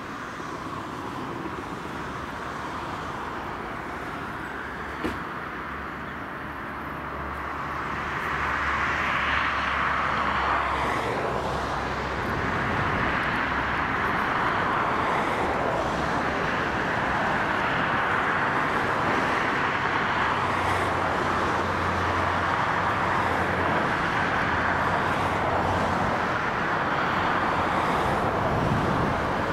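Boeing 767-300ER's twin CF6-80 turbofans on final approach at low thrust: a steady jet rush that grows louder about eight seconds in as the airliner nears, with slowly sweeping tones through it. A single short click about five seconds in.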